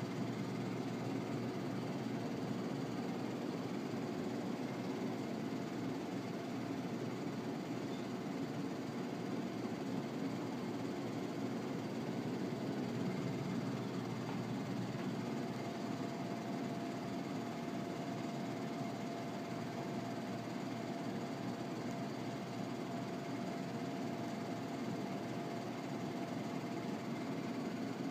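A steady mechanical rumble with a faint, steady hum running through it, unchanging throughout.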